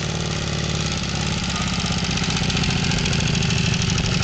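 Motorcycle engine running steadily at low revs, its level rising slightly.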